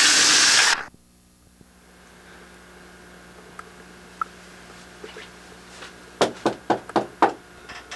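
A loud rush of noise cuts off abruptly under a second in. Later, about five quick, sharp knocks on a wooden door.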